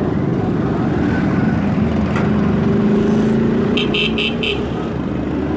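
Motorcycle engine running steadily while riding through traffic, with four quick horn beeps about four seconds in.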